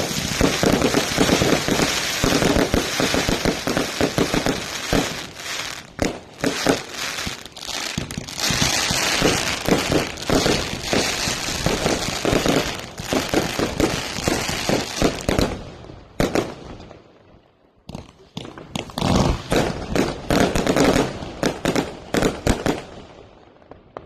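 Fireworks going off in dense, rapid crackling volleys of pops. They stop for about two seconds past the middle, start again, then thin out near the end.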